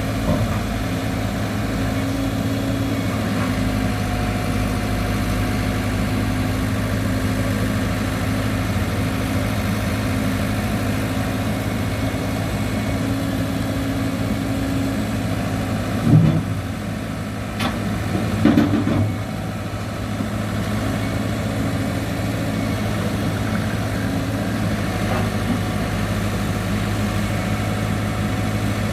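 Diesel engine of a Cat 313 excavator running steadily at a low, even speed. Two loud clunks break in about 16 and 18 seconds in.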